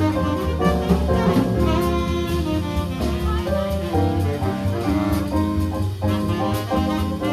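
Live small-combo jazz: keyboard chords and melody over a bass line, with regularly spaced cymbal strokes keeping time on a drum kit.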